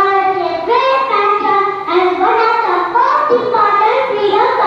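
A young girl's voice in long, pitched, sing-song phrases.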